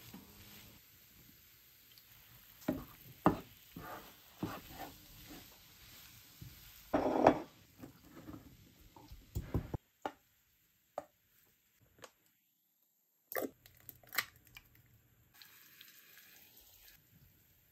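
A spatula scraping and knocking against a nonstick frying pan while stirring and scooping kimchi fried rice: irregular scrapes and taps over a faint sizzle, loudest about seven seconds in. After about ten seconds it goes much quieter, with only a few scattered clicks.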